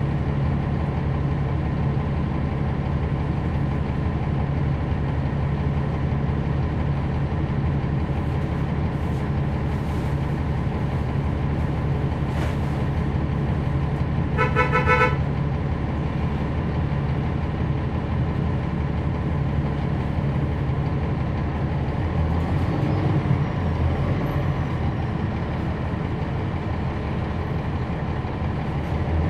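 Cummins ISL9 inline-six diesel engine of a NABI 40-SFW transit bus, heard on board, running with a steady hum. About halfway through, a vehicle horn gives one short toot lasting about a second.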